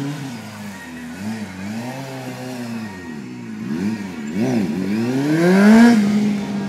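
Stunt motorcycle's engine revving in quick throttle blips, the pitch rising and falling several times as it is held in wheelies, then a longer rising rev near the end that levels off to a steady note.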